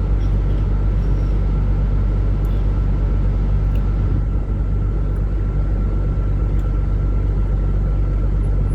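Truck engine running with a steady low rumble, heard inside the cab, with a faint steady high tone over it.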